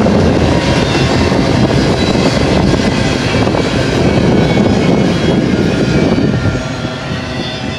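Double-stack container well cars of a freight train rolling past on the rails: a steady rumble and rattle of steel wheels and cars. It drops off about six and a half seconds in as the last car goes by.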